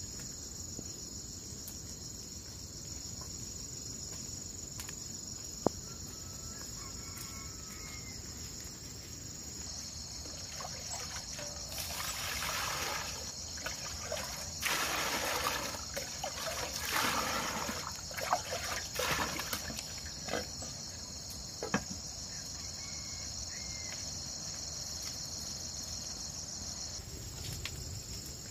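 Steady high-pitched insect chorus. From about 12 to 20 seconds in, water splashes and trickles as it is scooped from a large pot with a plastic dipper. There are a few sharp knocks, the sharpest about six seconds in.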